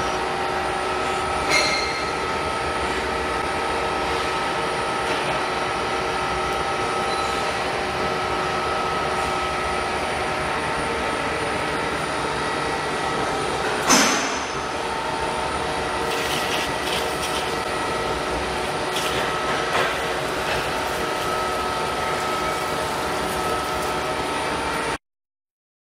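CNC lathe turning a large metal workpiece: a steady machine hum with several held tones. There is a sharp click a little over a second in and a louder clank about halfway through, and the sound cuts out completely for about two seconds near the end.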